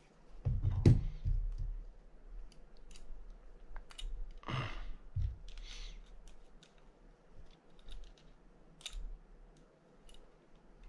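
Small parts and hand tools of a Penn Spinfisher 750SS spinning reel being handled during its rebuild: scattered sharp clicks and taps, a cluster of knocks about a second in, and two short rustling sounds around four and a half and six seconds.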